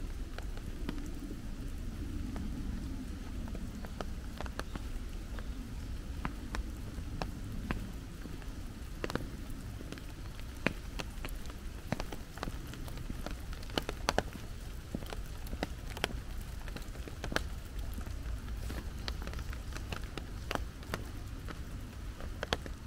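Rain falling, with many irregular drops tapping and dripping close by over a steady low rumble.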